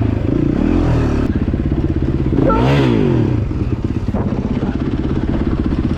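A motorbike-style engine sound running steadily, with one rev whose pitch rises and falls about two and a half seconds in.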